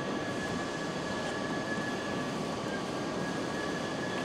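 Steady machinery noise of a car assembly hall, with two faint, steady high whines over it.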